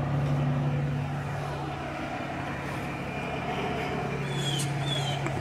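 Street ambience: a steady low hum of vehicle engines with traffic noise, and a few short, high, falling chirps near the end.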